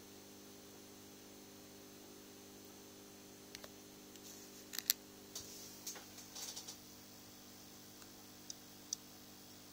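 A quiet, steady low hum with a scattering of light clicks and taps through the middle, the loudest a quick pair about five seconds in.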